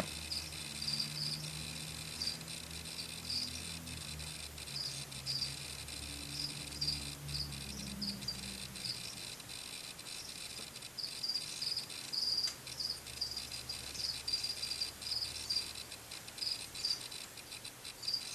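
Crickets chirping, a steady run of short high chirps several times a second, over a faint low hum during the first half.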